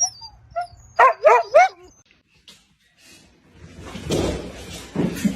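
A dog giving four quick, high-pitched yips in a row about a second in. This is followed after a pause by a stretch of indistinct noise.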